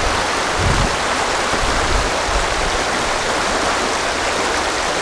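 West Gallatin River rushing steadily over a shallow, rocky riffle, with a couple of brief low rumbles in the first two seconds.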